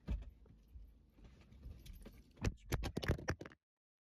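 Car seat being shaken and tightened into the vehicle seat: metal buckle and tether hardware rattling, then a quick run of loud knocks about two and a half seconds in. The sound cuts off abruptly near the end as the recording phone falls.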